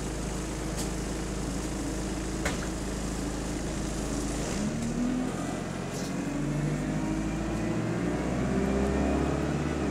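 Single-deck bus's engine heard from inside the passenger saloon: running steadily at first, then from about halfway through pulling away, its note rising in several climbs as the bus accelerates. A single sharp click sounds a couple of seconds in.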